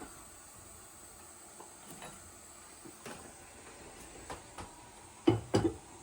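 Metal cookware on a gas stove: scattered light clicks and taps, then two loud clanks about a third of a second apart near the end, each with a short ring.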